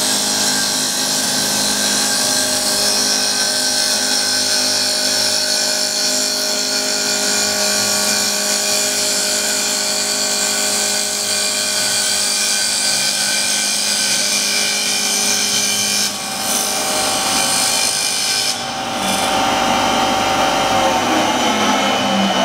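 CNC wood lathe turning a stair leg: the spindle motor's whine and the cutter shaving the spinning wood blank, a steady cutting hiss with several steady tones. It dips briefly twice partway through, and near the end one tone begins to drop in pitch.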